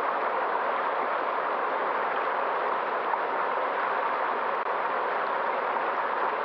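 River water flowing: a steady, even rushing with no breaks.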